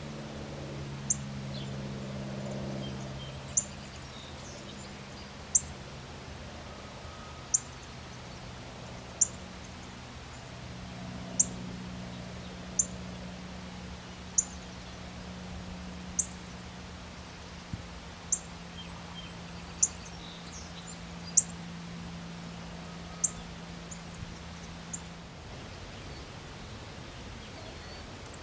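A bird giving a short, sharp, high chip call over and over, about once every one and a half to two seconds. A low steady hum runs underneath and stops a few seconds before the end.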